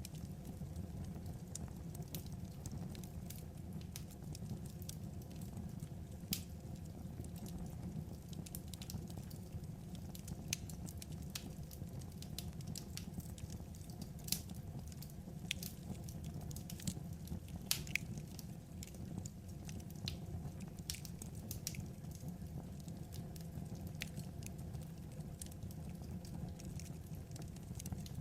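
Wood fire burning: a steady low rumble with irregular sharp crackles and pops scattered through it, a few of them louder.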